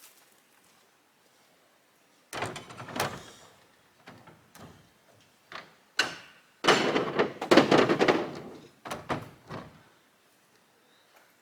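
A series of knocks and thumps with clattering. Two loud clusters come about two seconds in and again around seven seconds in, with a few single knocks between them.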